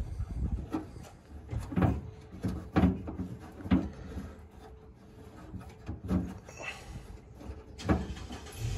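Knocks and clunks of metal parts as an olive-drab military radio speaker box is fitted to its steel mounting bracket by hand. There are about one a second at first, then a gap, then two more.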